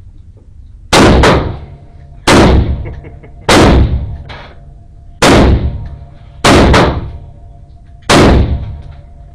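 Six gunshots fired one at a time, about one and a half seconds apart, each ringing out in an echoing indoor range, with a few fainter bangs between them.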